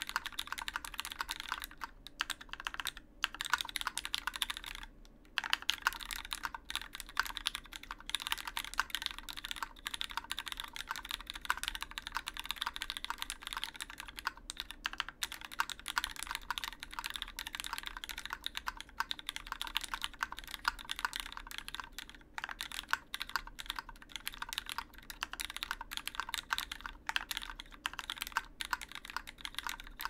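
Typing on a Duck Orion V2.5 custom mechanical keyboard with lubed Cherry MX Black Hyperglide linear switches in an aluminum plate, GMK keycaps and no foam: a continuous run of key presses with a couple of short pauses a few seconds in.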